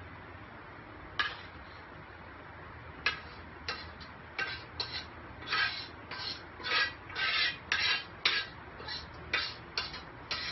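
Short, repeated scrapes of a utensil against a cooking pan as the garlic shrimp in tomato sauce is served out for plating. There is one scrape about a second in, then over a dozen more coming faster and closer together.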